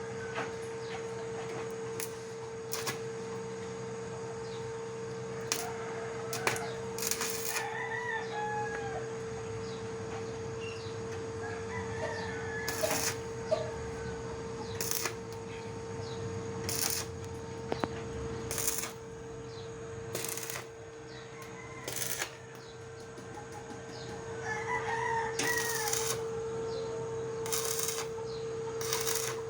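A rooster crowing three times, with a steady hum throughout and many short bursts of hiss.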